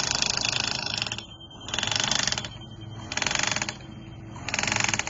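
Rapid mechanical clicking in four bursts of about half a second to a second each, repeated at a steady pace.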